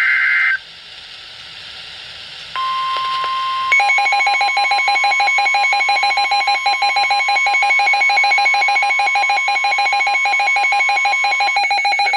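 The tail of a SAME digital header burst (warbling two-tone data), then, after a short gap of hiss, the NOAA Weather Radio 1050 Hz warning alarm tone sounds steadily. About a second later a weather radio receiver's own alert joins it, a loud, rapidly pulsing electronic beep, signalling an incoming severe weather warning.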